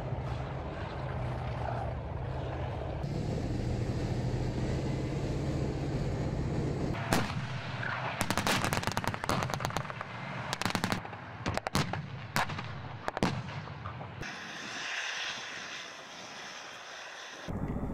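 Tank engine running with a steady low drone, then from about seven seconds a series of sharp gunshots, some in quick bursts, over the engine noise. Near the end the shots stop and a quieter hissing takes over.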